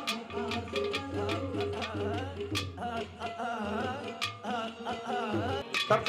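Music with a steady drum beat under a wavering melody line.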